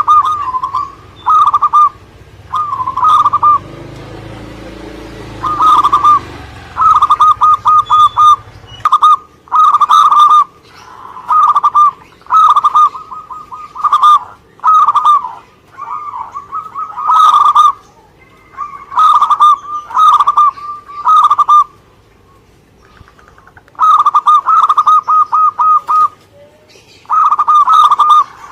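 Zebra dove (perkutut) cooing, singing actively: short phrases of rapid pulsed notes repeated over and over with brief pauses between them.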